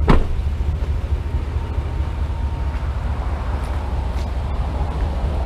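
A Chevrolet Silverado 1500 pickup's door slamming shut with a single sharp bang, followed by a low steady rumble.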